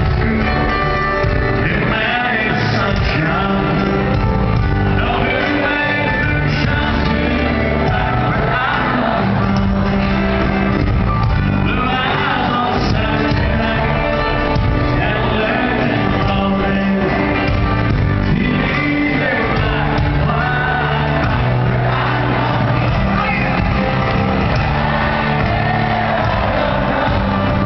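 Live band and singer playing over a stadium sound system, heard from within the crowd, with shouts and whoops mixed in.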